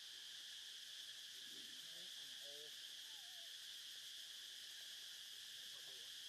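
Faint, steady chorus of insects droning through the whole stretch, with a few faint short calls rising over it about two and three seconds in and again near the end.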